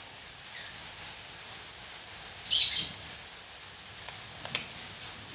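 Filled plastic soap bottles being handled and set down among one another: a short bright rustle about two and a half seconds in, then a few light plastic clicks near the end.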